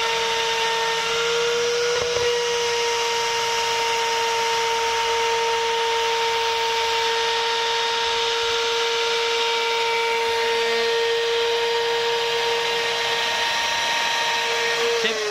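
LCHI 6090 CNC router's spindle running with a steady high whine over a hiss as it cuts 4 mm PVDF aluminium composite panel. Near the end the whine falls in pitch as the spindle winds down.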